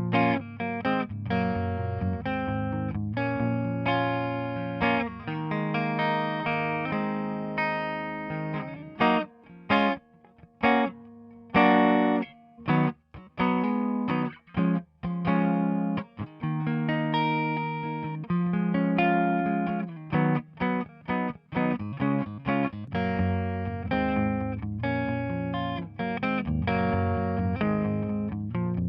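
Electric guitar playing chords, heard through the McDSP Analogue 202 tape-emulation plugin. It plays short, choppy stabs in the middle and ringing chords either side.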